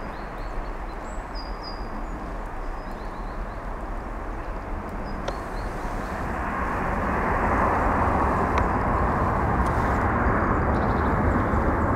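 Airbus A330-200 jet engines at takeoff thrust: a steady rushing roar with a deep rumble underneath, growing louder about halfway through and then holding.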